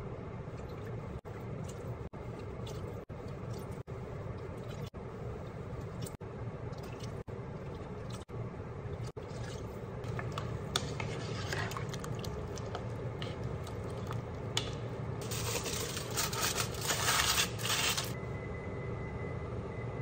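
Cooking at the stove over a steady low hum: liquid poured from a spoon, a metal ladle clinking and scraping in a pot, then aluminium foil crinkling loudly for a couple of seconds near the end as it is crumpled and pressed over the simmering food as a drop lid.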